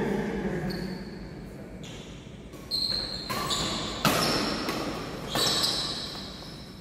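Badminton rally: three sharp racket hits on the shuttlecock, roughly a second and a half apart, each followed by a brief high ringing tone.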